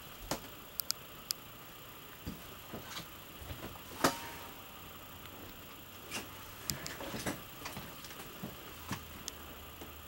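Scattered light clicks and taps at irregular intervals, the sharpest about four seconds in with a brief ring after it, over a faint low hum.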